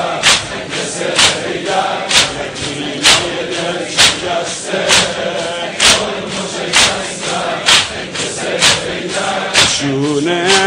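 Mourners' rhythmic chest-beating in a Shia latmiya, one sharp strike a little under every second, with the crowd chanting between the strikes. Near the end, a solo male reciter's sung voice comes in.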